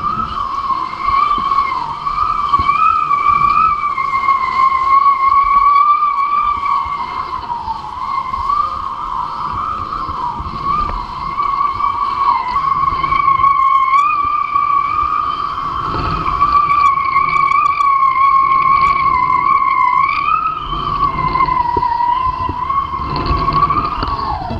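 Kitefoil hydrofoil singing: a steady, high whine from the foil cutting through the water, wavering slightly in pitch, over rushing wind on the microphone. Right at the end the whine drops in pitch and stops.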